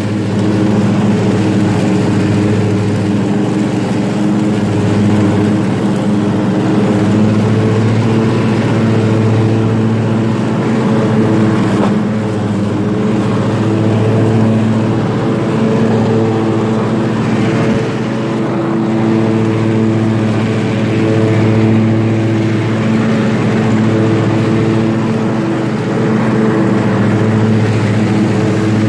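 Riding lawn mower's engine running steadily while mowing grass, a continuous drone that swells and dips slightly as it goes.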